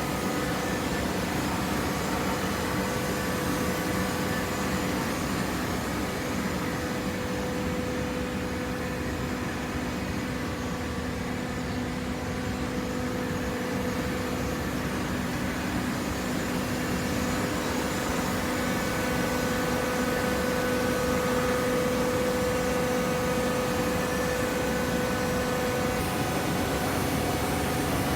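Waste paper box baler with its feed conveyor running: a steady machine hum with a held whine that grows stronger about two-thirds of the way through.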